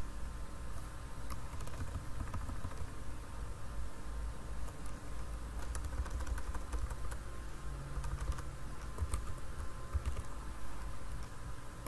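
Computer keyboard keystrokes, sparse and irregular, a few keys at a time with pauses between, over a steady low hum.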